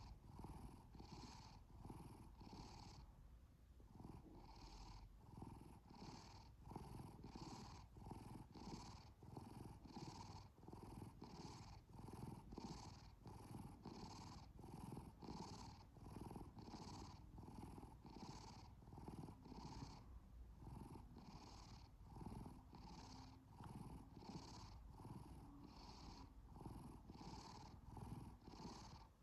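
Domestic cat purring close up, a low rumble that pulses steadily with its breathing, a little under twice a second.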